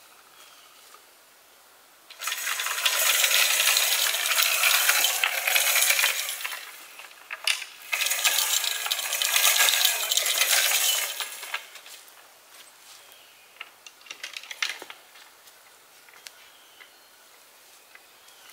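Target hanger sliding along a steel cable, a loud metallic rattling scrape in two long runs of about five and three and a half seconds, followed by a few small clinks.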